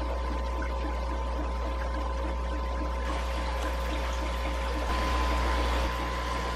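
Steady fish-room background: an aquarium air pump and filter humming, with water bubbling and trickling from the aeration. It is briefly a little louder about five seconds in.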